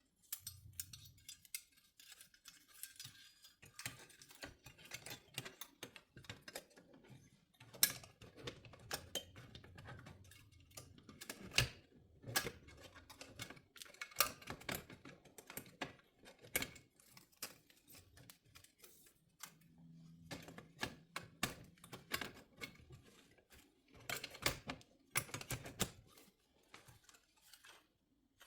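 Light, scattered plastic clicks, taps and rattles as the cover of a car display unit is handled and put back on.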